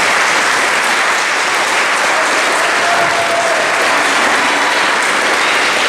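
Audience clapping in sustained applause, a dense steady patter in a large hall.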